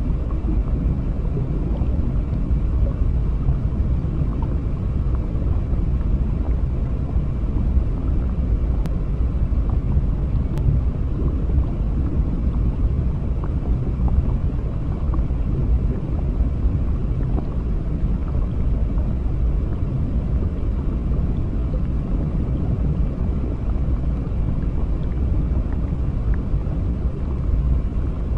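Underwater ambience: a steady low rumble of moving water, with faint scattered clicks.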